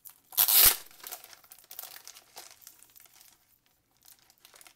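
Clear plastic sleeve crinkling as it is pulled off a photobook by hand. There is one loud rustle about half a second in, then softer crinkles that die away.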